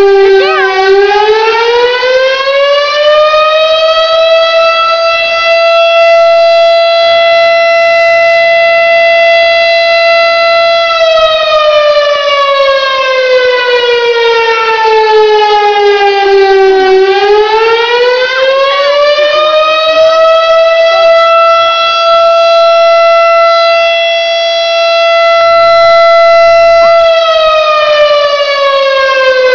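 Fire station siren sounding the fire alarm. It winds up to a steady high tone and holds it for about seven seconds, then winds down. It winds up and holds again, and starts falling once more near the end.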